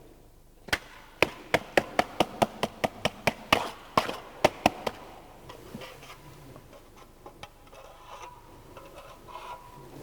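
A quick run of about fifteen sharp metal taps, three or four a second, followed by fainter scraping and small knocks: a hand tool working on a steel concrete test mold as the fresh concrete is smoothed off level at the top.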